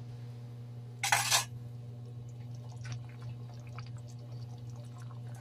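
Sweet and sour sauce simmering in a wok, with faint small bubbling pops over a steady low hum. A short, loud burst of noise comes about a second in.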